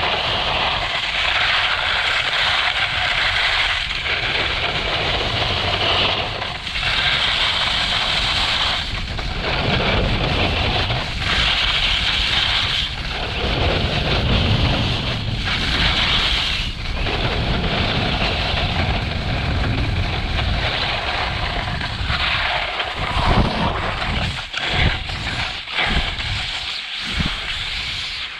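RVL8 Blunt XL skiboards carving on groomed snow: a steady scraping hiss that swells with each turn every few seconds, over wind noise on the microphone. Near the end come several short, uneven low thumps.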